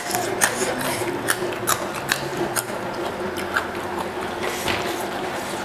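Close-miked chewing of a crunchy mouthful of food: sharp crunches about twice a second for the first half, then fewer and softer.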